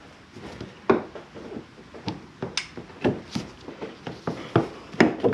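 Plastic front bumper cover of a Jeep Grand Cherokee clicking and knocking as it is worked and pressed into place, with irregular sharp knocks, the loudest about a second in and again near the end.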